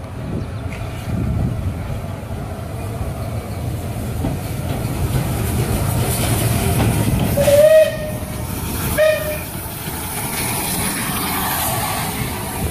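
Bulleid Pacific steam locomotive passing close at low speed, its wheels rumbling and clicking over the rails. It gives two short whistle toots a little past halfway, and a steam hiss comes in near the end.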